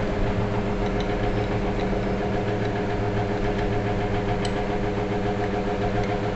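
Steady low hum of a running machine, with a few faint metallic clicks on top.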